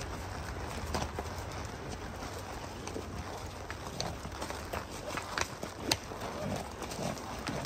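Horses walking on rocky, leaf-strewn ground, their hooves striking stone in an irregular clip-clop.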